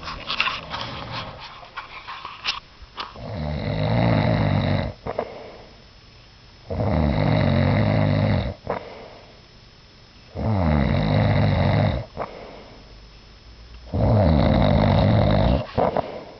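Loud snoring: four long snores about three and a half seconds apart, each cut off by a sudden wet pop, the "wet explosion". A few faint clicks come before the first snore.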